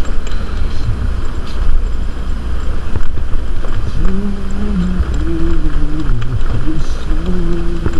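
Scooter riding on a rough road: a steady low rumble of engine, tyres and wind buffeting the microphone. From about halfway a person's voice holds a few long, drawn-out notes over it.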